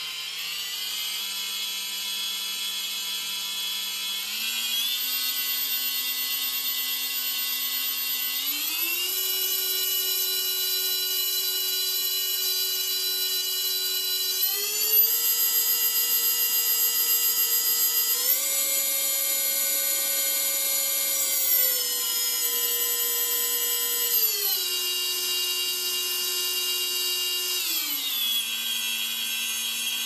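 A quadcopter's Lumenier 2206 brushless motor spinning under the Betaflight motor test, its whine stepping up in pitch in about five stages as the throttle is raised, then back down in three stages about two-thirds of the way through.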